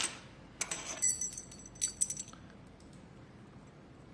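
A run of light, high-pitched clinks and ticks of small hard objects jingling, over the first two seconds or so, then only faint room tone.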